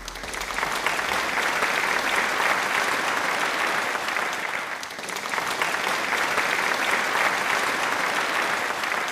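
Crowd applauding, a dense steady clatter of many hands that eases off briefly around the middle and then swells again.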